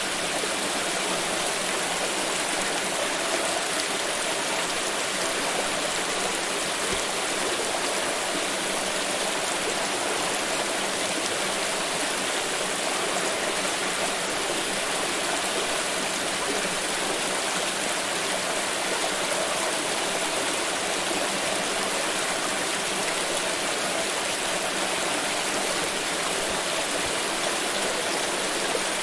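Water pouring and splashing in a steady, unbroken rush.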